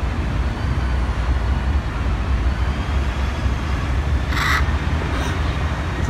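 Steady low rumble of city traffic, with one brief harsh hissing burst about four and a half seconds in.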